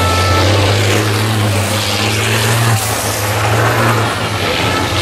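Race trucks' diesel engines running hard as MAN trucks pass through a corner: a steady, deep engine note with a broad rushing noise over it.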